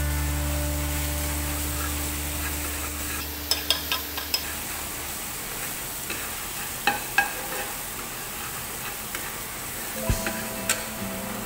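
Ground garlic sizzling in a little oil in a nonstick frying pan, stirred with a metal spatula that clicks and scrapes against the pan now and then. A low background music note fades away over the first few seconds.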